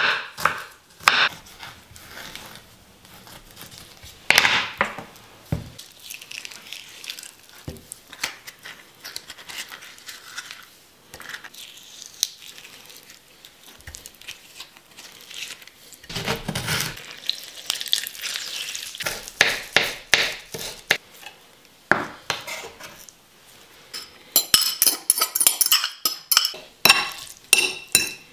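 Food-prep sounds: a knife tapping quickly on a wooden cutting board as garlic is chopped, a spoon scraping flesh out of an avocado, then a fork clinking and scraping rapidly against a ceramic plate as avocado and tomato are mashed near the end.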